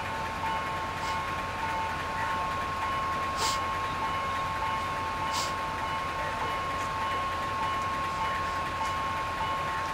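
Sri Lanka Railways rail bus rolling slowly with its diesel engine running: a steady hum under a steady high whine, and two sharp clacks from the wheels on the track about two seconds apart near the middle.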